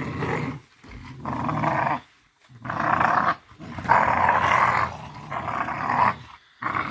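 Puppies growling while tugging on a rope in a tug-of-war, in a string of bursts about a second long with short pauses between.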